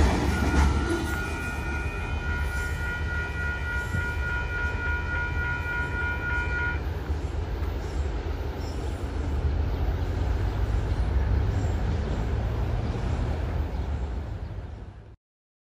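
Freight train of autorack cars rolling past with a steady low rumble and rattle, fading as the train moves away. A steady high-pitched tone rides over it for about six seconds in the first half. The sound cuts off abruptly near the end.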